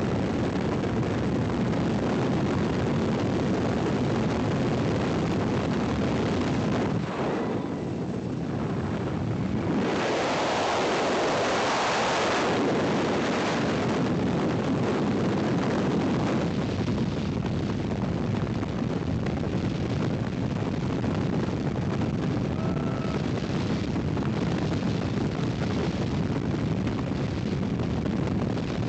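Loud, steady wind rushing over the camera microphone during a tandem skydive, first at the open door of the jump plane and then in freefall. It dips briefly about seven seconds in and surges between about ten and thirteen seconds.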